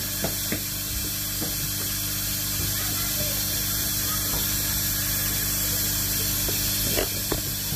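Steady rush of running water with a low hum underneath, and a few light knocks just after the start and again near the end.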